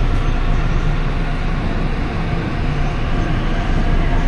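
Steady, loud rumble of a moving vehicle, with rail-like running noise.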